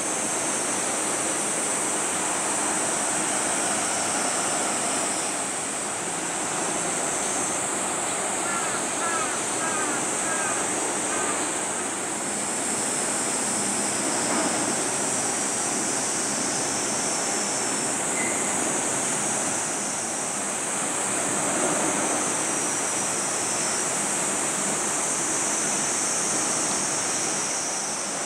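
Steady outdoor wash of water and wind noise beside the strait, with a constant high-pitched hiss on top. A few brief chirps come about a third of the way in.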